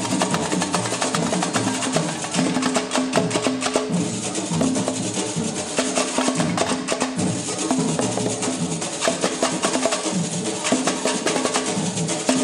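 Live samba batucada drumming: a small drum group playing a steady, fast groove, with dense sharp strokes over repeated low drum tones.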